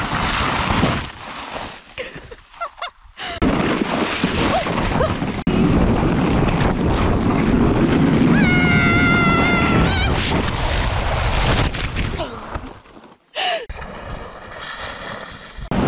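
Plastic sled sliding fast down an icy, crusty snow slope, a dense rumbling rush with wind buffeting the action camera's microphone. Partway through, a rider lets out a long high yell of about a second and a half.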